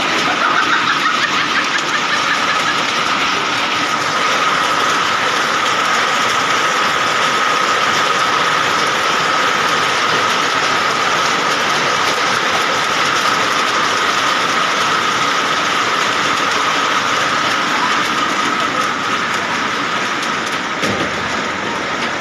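Hailstorm: hailstones pelting roofs and hard surfaces in a dense, continuous clatter, with a steady high-pitched tone running through it.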